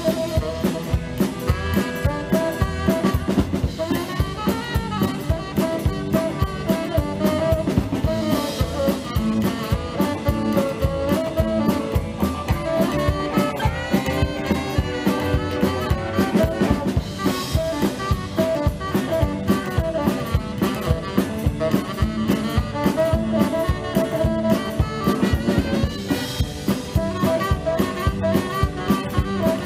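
Live rock 'n' roll band playing an instrumental passage with no vocals: saxophone, electric guitars, upright double bass and drums keeping a steady beat.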